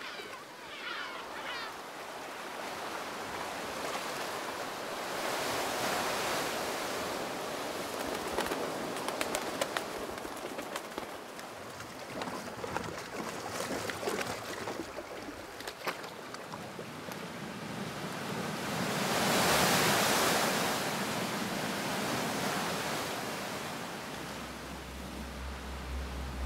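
Ocean waves washing ashore, the surf swelling and falling back twice. Birds chirp briefly at the start, and a low steady hum comes in near the end.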